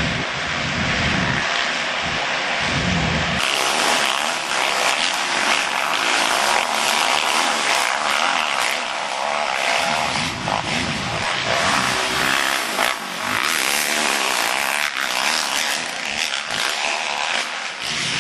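Motocross dirt bike engines running and revving as the bikes race on the track, with a steady level throughout.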